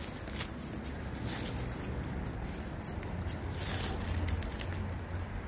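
Lycan Shepherd puppies chewing and tearing at raw chicken: wet gnawing and squishing with scattered small clicks, and dry leaves crinkling under their paws, most clearly a little before the end. A steady low rumble runs underneath.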